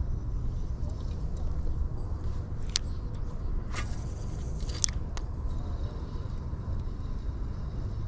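Steady low wind rumble on the microphone, with a few sharp clicks and about a second of hiss near the middle as an ultralight spinning rod and reel are cast.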